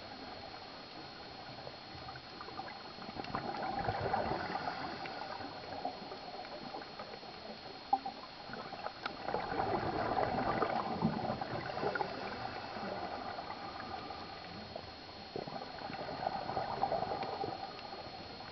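Scuba diver's exhaled bubbles gurgling from the regulator underwater, swelling three times about six seconds apart, breath by breath. A faint steady high tone runs underneath.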